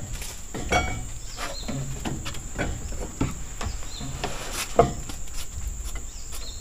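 A steady, high-pitched insect drone runs under irregular snaps and crackles, with one sharper crack a little before five seconds in.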